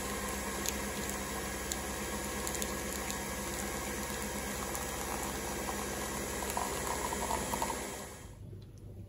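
Pod coffee machine brewing, running with a steady hum while a stream of coffee pours into a mug. The sound falls away about eight seconds in.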